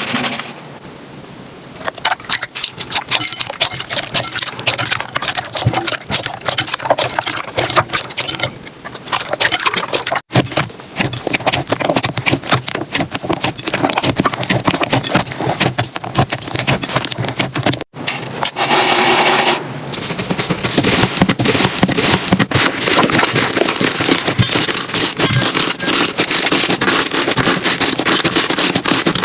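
Slime being squeezed, poked and stretched by hand, making dense wet crackling and popping clicks. The sound changes briefly about ten and eighteen seconds in as one slime gives way to another.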